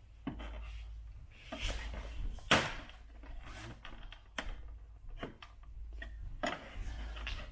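Plastic trim-removal tool prying the chrome lower grille trim off a BMW Mini's front bumper: plastic scraping and rubbing with a series of irregular sharp clicks as the retaining tabs give, the loudest about two and a half seconds in.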